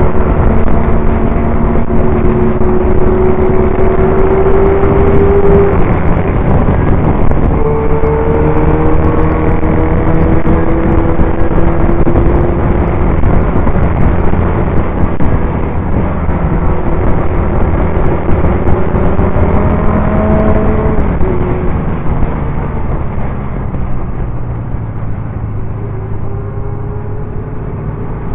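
Norton Commando 850's air-cooled parallel-twin engine heard from on board at racing speed. The engine pitch climbs steadily under acceleration, breaks and picks up again about six seconds in and once more past twenty seconds, then the engine goes quieter near the end, mixed with heavy wind rush on the microphone.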